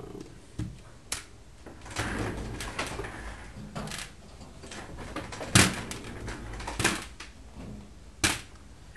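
Irregular knocks, clicks and rustles of hands handling clay and objects on a hard work surface, the loudest knock a little past halfway and two more near the end.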